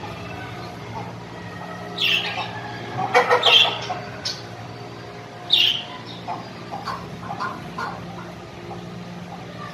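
Birds calling: three loud, harsh squawks in the first half, then a run of softer short calls, over a steady low hum.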